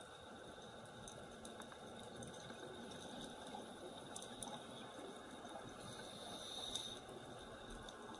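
Faint, muffled underwater sound of a scuba dive: bubbling and gurgling from a diver's exhaled air, with scattered small clicks throughout.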